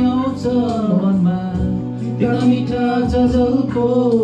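A man singing a Nepali song over instrumental backing music, drawing out long notes that waver in pitch.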